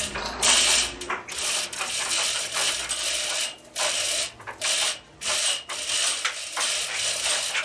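A metal ratcheting mechanism clicking and rattling in short repeated strokes, about one to two a second with brief pauses between them.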